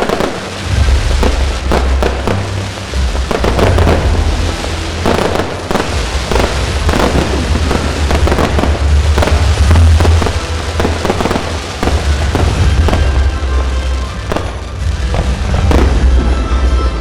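Fireworks display going off in rapid, overlapping bangs throughout, over loud music with a heavy bass line.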